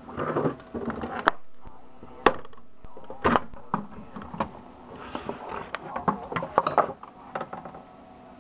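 Handling noise: a series of sharp clicks and knocks as the opened CB radio's metal case is moved about and filmed, most of them in the first seven seconds.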